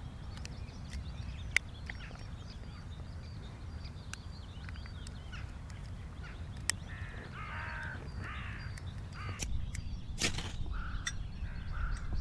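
Birds calling outdoors, a run of repeated crow-like calls in the second half, over a low rumble with a few sharp clicks and knocks.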